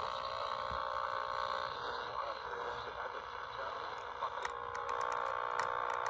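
Small CF210SP kit AM/FM pocket radio playing a station through its little speaker, the sound thin and mostly midrange, as its tuning dial is turned. A run of sharp clicks and crackles comes in over the second half.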